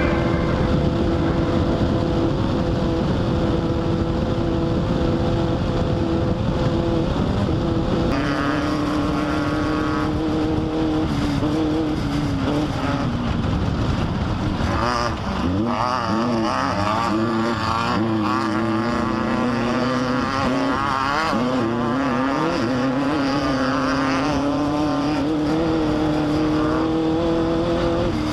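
Off-road race car engine running hard under load. Its pitch holds steady at first, drops about eight seconds in, then rises and falls quickly through the second half as the throttle and revs change.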